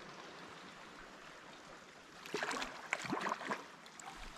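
Splashing in the water beside a kayak as a hooked bass is drawn in and netted: faint lapping at first, then a little over two seconds in a second or so of irregular splashes.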